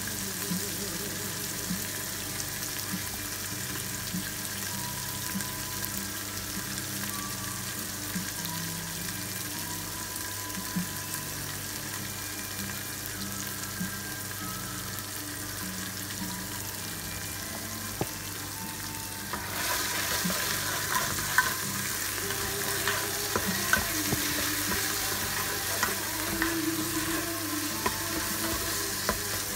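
Minced pork sizzling steadily in hot oil in a nonstick multicooker pot. About two-thirds of the way in, the sizzle grows louder and a spatula starts stirring and scraping the meat around the pot, with scattered clicks.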